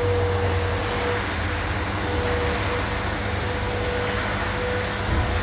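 Steady mechanical hum and hiss with a constant mid-pitched tone, unbroken throughout.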